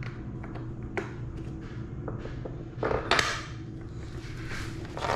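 Office chair parts and bolts being handled and fitted together with an Allen key: scattered light metal clicks and taps, with a louder scuffing noise about three seconds in, over a steady low hum.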